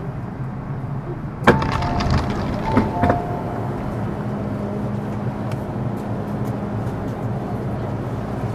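Inside a Metro Cammell M-Train (C192) car: a steady low hum, broken about a second and a half in by a sharp clack, then two short bursts of two-note electronic tones with clicks over the next two seconds.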